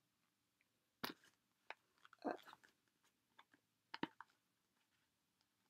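A few faint clicks and crinkles from a pack of carbon paper being handled, the sharpest about a second in and again about four seconds in.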